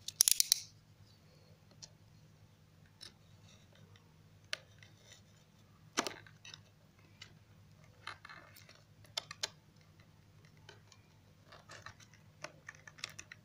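A snap-off utility knife cutting the seal of a small cardboard box. A quick cluster of sharp clicks comes at the start, followed by scattered short scrapes and clicks, with a faint steady hum underneath.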